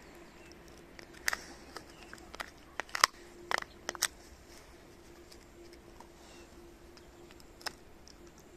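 Shiba Inu crunching a chicken carcass left over from making stock. A string of sharp cracks comes from about one to four seconds in, with one more near the end.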